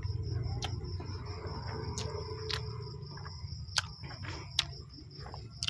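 Close-up eating sounds of someone chewing chow mein noodles: soft wet chewing with about half a dozen sharp mouth clicks and smacks, over a steady low hum and a faint steady high-pitched tone.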